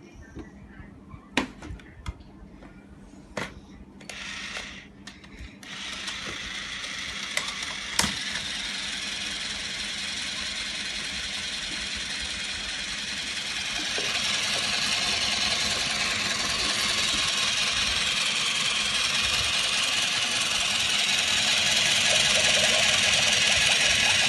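A few light plastic clicks and taps, then a small battery-powered motor in a toy kitchen appliance starts about six seconds in and runs steadily, getting louder about fourteen seconds in and again near the end.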